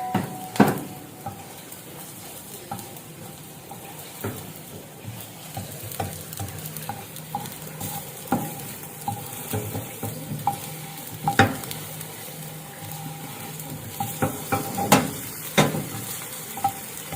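Egg frying into an omelette in a hot pan, sizzling steadily, with a utensil knocking and scraping against the pan every few seconds.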